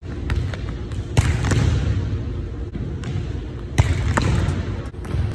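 A volleyball spiked off an Acuspike hitting machine: a sharp hand-on-ball smack about four seconds in, the loudest sound here. Earlier and after it come thuds of volleyballs bouncing on the hardwood floor, echoing through the gym.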